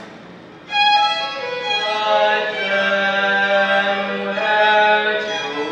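High school choir singing slow, held chords. A chord dies away into a brief hush, and the choir comes back in together about a second in.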